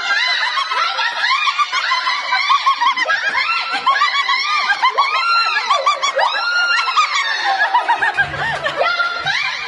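A crowd of women and children laughing, many voices overlapping at once.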